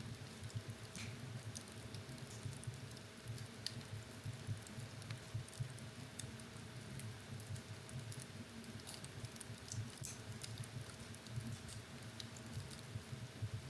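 Fire burning in a fireplace, crackling with frequent small, irregular pops and snaps over a steady low rumble of the flames.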